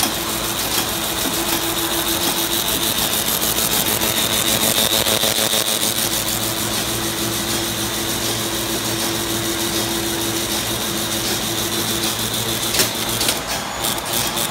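Card-affixing machine running at production speed: belt conveyors and card feeders clattering in a fast, even stream of clicks over a steady hum and a high whine, with a couple of sharper knocks near the end.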